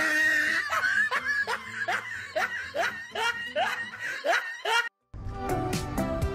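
A snickering laugh in quick rising catches, about three a second, over background music. It breaks off in a brief silence about five seconds in, and the music carries on.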